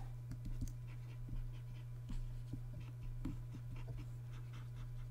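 Stylus of a Wacom pen tablet scratching and tapping in short, irregular strokes as a brush is worked in quick circles, over a steady low electrical hum.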